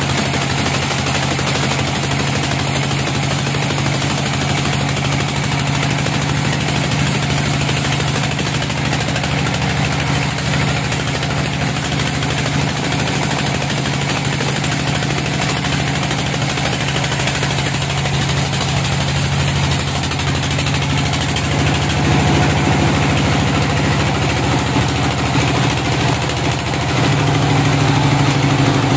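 Sawmill band saw running steadily as its blade rips lengthwise through a log to cut off a slab, a constant machine drone with a low hum. The sound gets somewhat louder about three quarters of the way through and again near the end.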